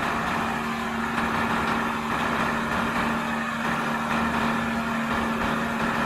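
Diesel engine of a four-axle Renault tipper truck running steadily with its dump body raised, a steady hum over the engine noise.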